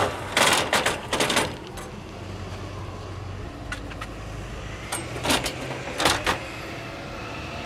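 Werner extension ladder sliding and scraping against a van's roof rack as it is pulled down, in several short rattling bursts over a steady low rumble.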